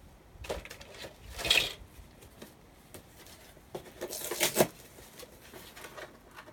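Brown paper packaging being handled and torn, with two louder rips, about a second and a half in and about four and a half seconds in.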